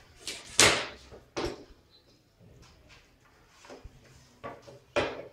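A wooden ruler and a tape measure being picked up and laid down on cloth over a wooden tabletop, making a few short knocks and scrapes. The loudest comes about half a second in, with others after about a second and near the end.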